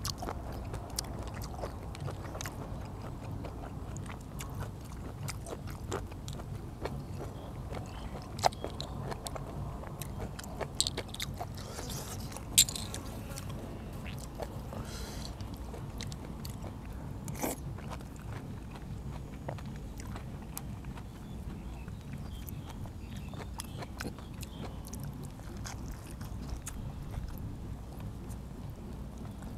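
A person eating blanched blood cockles: chewing, with scattered sharp clicks and scrapes of the cockle shells and a spoon.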